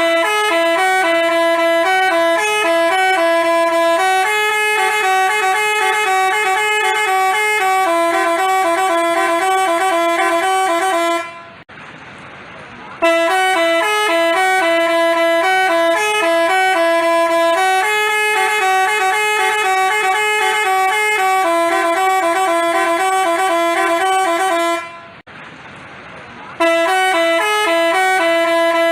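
Telolet basuri musical bus horn playing a stepped, multi-note melody. It fades out twice, about 11 seconds and 25 seconds in, for a second or two each time, then starts the tune again.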